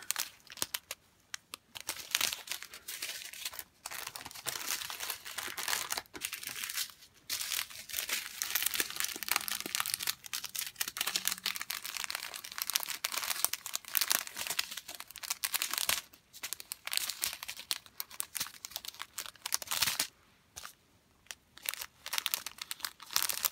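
Small clear plastic zip bags of diamond-painting resin drills crinkling as a handful of them is shuffled and fanned out, in irregular bursts with short pauses.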